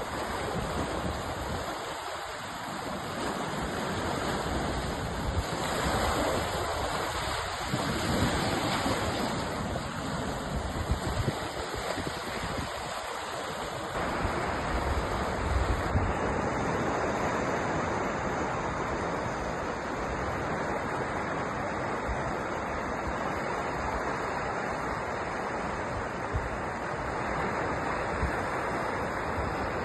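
Sea waves washing onto a shore: a steady rushing surf that swells and eases, loudest about six to nine seconds in.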